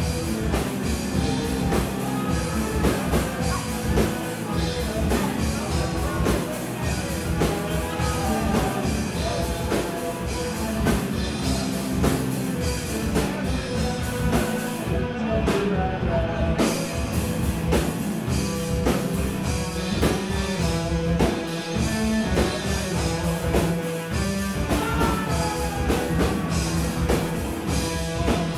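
Live rock band playing: distorted electric guitar, drum kit and keyboard synth, heard from the back of the room. The cymbals drop out briefly about halfway through.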